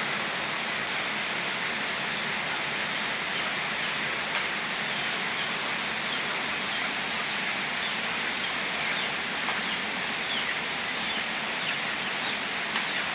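Steady rain falling as an even hiss, with one sharp click about four seconds in.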